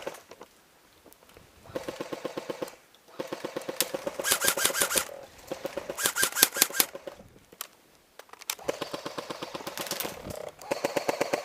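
Airsoft guns firing rapid full-auto bursts of sharp, rattling clicks, about five bursts of one to two seconds each with short pauses between them.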